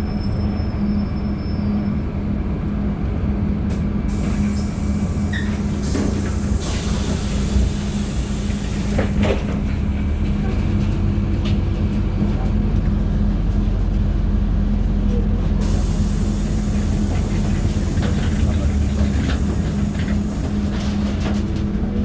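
Interior ride noise of a LiAZ-5292.71 natural-gas city bus under way: a steady low engine drone with scattered rattles and clicks.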